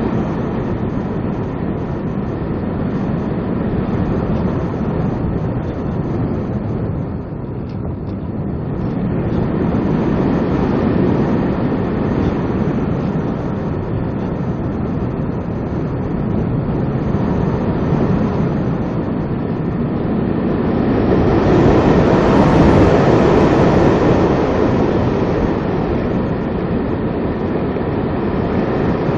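Rushing wind noise from air streaming over the on-board camera's microphone on a Multiplex EasyStar foam radio-control glider while it slope-soars, with no motor heard. The rush swells louder and brighter for a few seconds about two-thirds of the way through.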